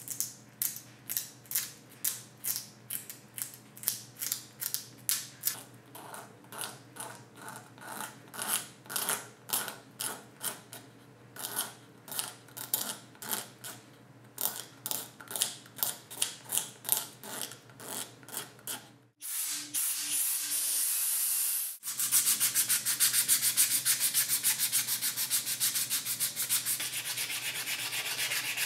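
Sanding on a hand plane part, worked back and forth in strokes about two a second. Some two-thirds of the way in it changes to a louder, continuous fast rasping.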